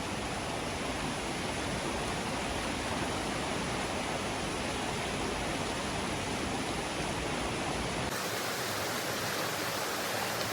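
Waterfall: steady rushing of falling water. About eight seconds in, the deepest part of the sound drops away abruptly while the rushing continues.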